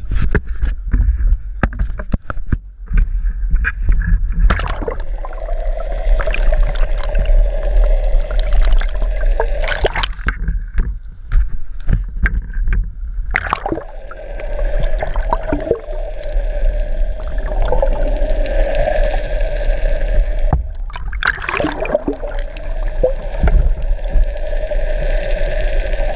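Water gurgling and rushing against a GoPro Hero 3's waterproof housing held under the surface, with knocks and bumps from handling and a steady hum heard through the water. The first few seconds are knocks and rumble before the camera goes under.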